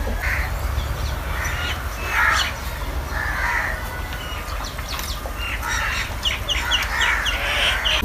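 Crows cawing several times, with a quick run of smaller bird chirps near the end.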